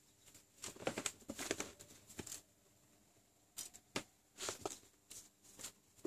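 Faint rustling and light clicks of hands handling hookup wires on a solderless breadboard while wiring in a push-button switch. The sounds come in irregular bursts: a busy cluster about a second in, then several short ones in the second half.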